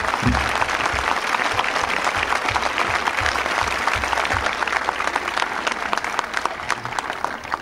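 Crowd applauding, a dense patter of many hands clapping that dies away near the end.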